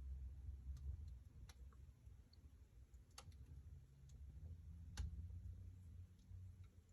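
Wood fire in a fireplace crackling faintly, with scattered sharp pops at irregular times, the loudest about three and five seconds in, over a low rumble.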